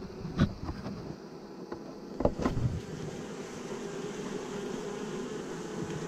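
Honey bees buzzing in a steady hum, with a few sharp knocks and scrapes, about half a second in and again around two seconds in, as a metal hive tool prises a slab of fresh wax comb loose from the wooden floor of the trap box.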